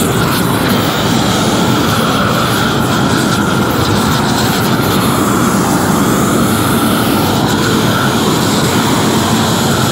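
Propane roofing torch burning steadily at full flame, heating the underside of a torch-down rubber roll as it is rolled out onto the base sheet.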